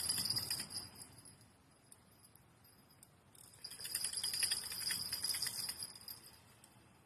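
Small bell on a fishing rod jingling in two bouts, one at the start and a longer one from about three and a half seconds in, the sign of a fish tugging on the line.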